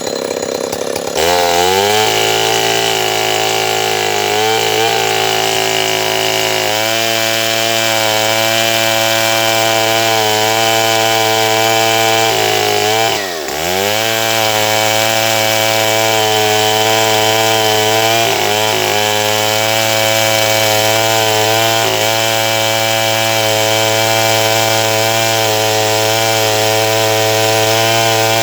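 Stihl 070 two-stroke chainsaw running steadily under load, cutting sengon wood. About thirteen seconds in, its note dips sharply and recovers.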